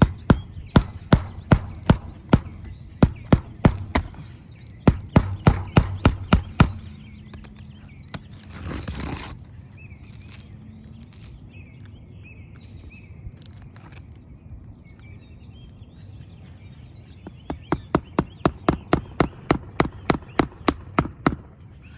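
Hammer driving roofing nails into asphalt shingles, two runs of quick sharp blows. The first run lasts about the first seven seconds. A brief rough noise comes about nine seconds in. The second run of faster blows comes near the end.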